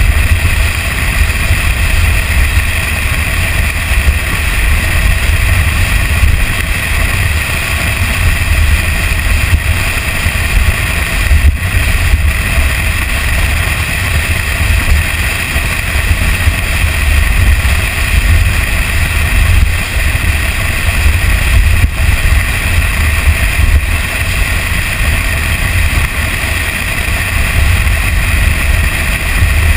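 Steady wind rush and low, buffeting rumble on a camera mounted outside a Toyota Tacoma pickup driving a dirt trail, with the truck's running noise underneath.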